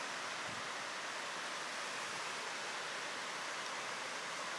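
Steady, even outdoor ambient hiss with nothing standing out in it.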